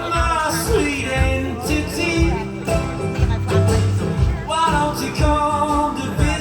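Live band playing a country-tinged folk song, with a bending melody line over steady bass and drums.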